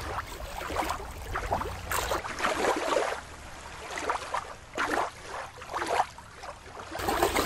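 Water lapping and splashing at a rocky river shore, with a low wind rumble. About two seconds in, the sound switches abruptly to a thinner-sounding recording of irregular water lapping, which lasts until near the end.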